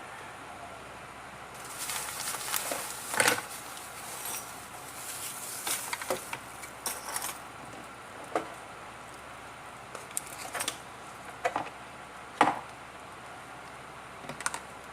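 Small hard parts and tools handled on a work surface: rustling for several seconds, with scattered sharp clicks and taps throughout. Two of the taps, a few seconds in and near the end, are the loudest.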